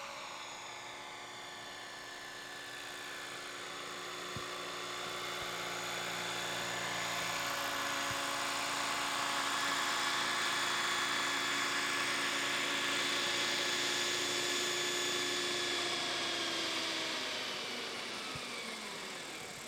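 RC scale model helicopter on a Century Falcon frame: a steady whine from its motor and rotors that grows louder as it comes in low to hover and land. In the last couple of seconds the pitch slides down as the rotor spools down after touchdown.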